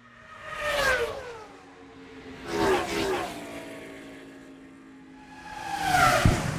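Sound-effect pass-bys of fast vehicles zooming past one after another, each engine note dropping in pitch as it goes by. They come about a second in, near three seconds, and loudest near the end, where low thuds join in.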